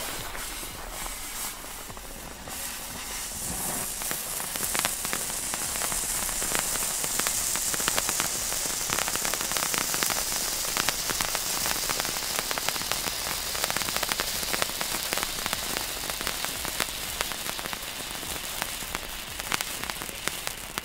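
Komet Feuerdrache hand fountain, a small class 1 spark fountain, burning. It gives a steady hiss thick with fine crackling sparks, which builds up over the first few seconds and eases slightly near the end.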